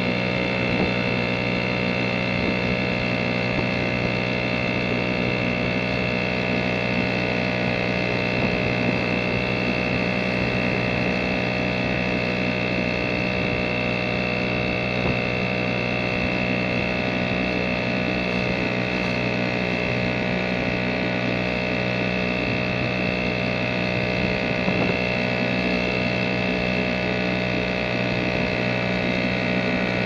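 British Seagull two-stroke outboard motor running at a steady, unchanging speed.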